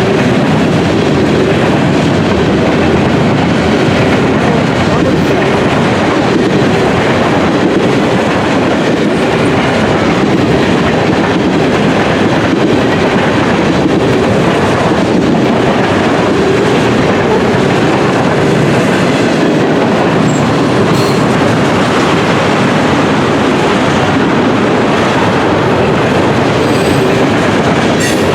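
CN freight train cars rolling steadily past at close range, a continuous loud rumble and clatter of steel wheels on the rails, with a faint wheel squeal.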